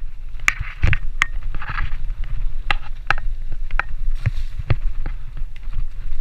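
Enduro dirt bike riding a rough forest singletrack: the engine runs as a steady low rumble, with frequent sharp irregular knocks and clatters as the bike bounces over the trail.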